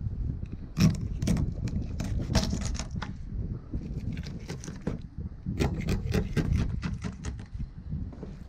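Knife cutting through a rainbow trout's rib bones and backbone on a wooden table: a run of irregular crunching clicks and scrapes as the blade cuts bone and knocks the wood, over a low rumble.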